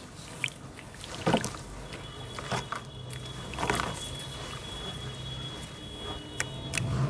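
Hands swishing, patting and scooping through wet charcoal-sand slurry in a plastic tub, giving irregular soft splashes and wet squelches. A faint, thin, steady high tone runs underneath from about two seconds in until near the end.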